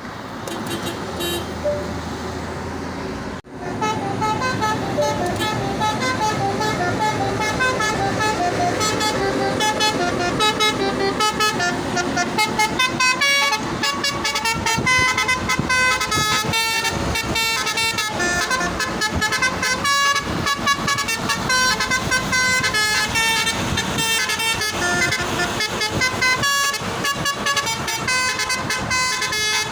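Truck's basuri telolet air horn playing a fast tune: one note after another in a quick, rhythmic run. It starts after a sudden break about three and a half seconds in.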